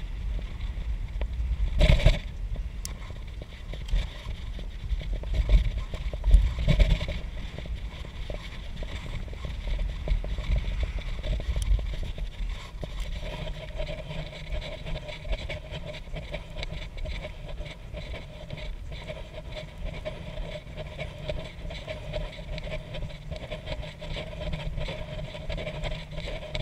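Wind on the microphone and tyre rumble from a bicycle riding on a road, with a few jolts over bumps in the first seven seconds. A steady low hum joins in from about halfway through. The recording is sped up to 150%, which raises its pitch.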